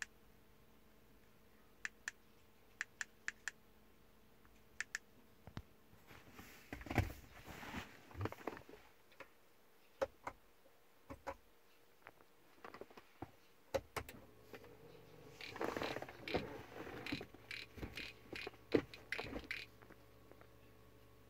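Sharp single clicks, about eight of them spread over the first five seconds, then irregular rustling and knocking, as of a hand-held camera being moved about, in two stretches.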